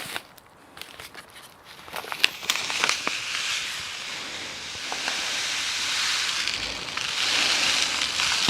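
Coarse salt and brown sugar being poured into a bowl for a curing mix: a few light clicks and knocks, then a steady granular hiss that runs for several seconds, with a short break near the end.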